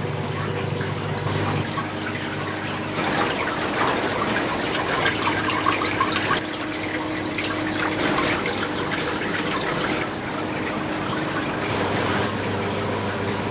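Water running and trickling through a hydroponic growing system, a continuous splashing flow over a low steady hum. The level jumps up or down in steps every few seconds.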